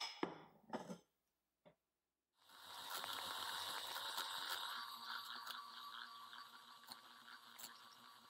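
An electric hand mixer starts running about two and a half seconds in, beating eggs in a bowl. It is a faint, steady motor sound that drops lower after a couple of seconds. Before it comes a couple of short knocks.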